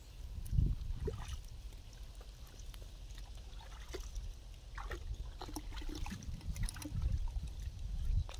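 Hands working in shallow muddy water: scattered small splashes, drips and trickles, over a low steady rumble.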